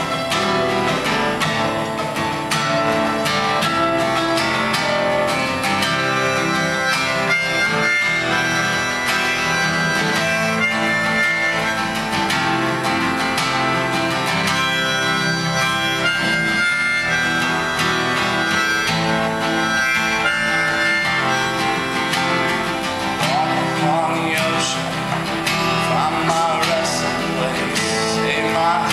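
Acoustic guitar trio playing a calm song: strummed and picked chords under a sustained melody line, which wavers in pitch near the end.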